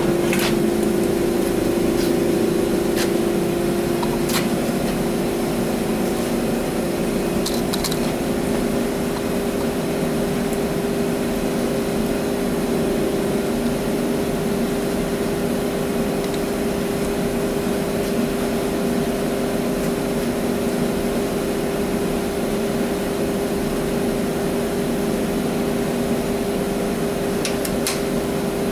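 A steady mechanical hum, with a few light metallic clicks as parts are handled at a front wheel hub, some in the first several seconds and two more near the end.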